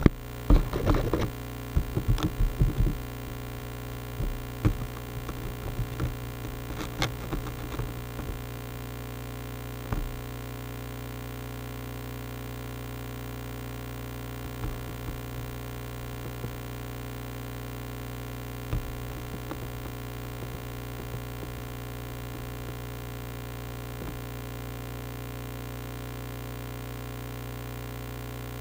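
Steady electrical hum made of many fixed tones, with a cluster of knocks and handling taps in the first three seconds and a few single knocks later on.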